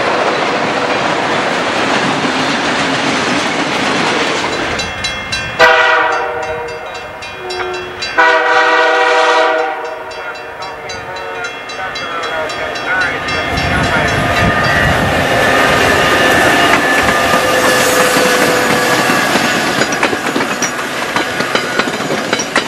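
Freight cars rolling past with a steady rumble and clatter on the rails; then a diesel locomotive's air horn sounds two long blasts, about six and eight seconds in. After that an approaching passenger train grows louder and runs past, its wheels clicking over the rail joints.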